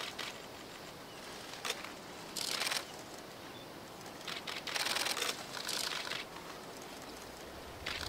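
A handful of short bursts of crackling rustle, the longest one lasting about a second near the middle.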